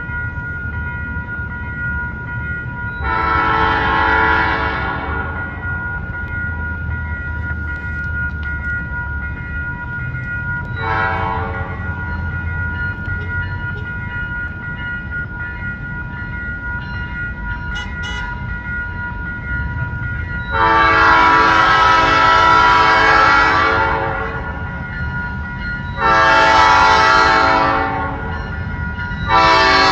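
Diesel freight locomotive's multi-chime air horn sounding a series of blasts over the low rumble of the train. There is a long blast a few seconds in and a short one about eleven seconds in, then a long blast, a shorter one and another starting at the very end.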